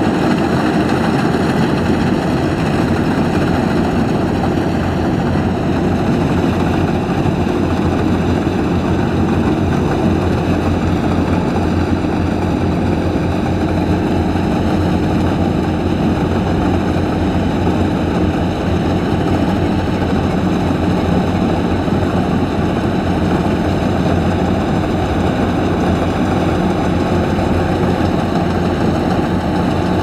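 Kubota DC-105X combine harvester's diesel engine running steadily under load as the machine cuts and threshes standing rice, a loud, even drone that holds without change.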